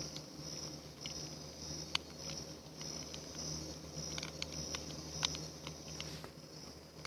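Campfire burning, its wood crackling with irregular sharp pops, the sharpest about two seconds in and again just past five seconds. A steady high insect trill starts and stops behind it.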